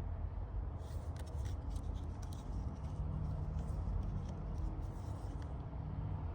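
Light metallic clicks and scrapes of a saw chain and guide bar being handled while the chain is fitted onto a Husqvarna chainsaw, over a steady low hum.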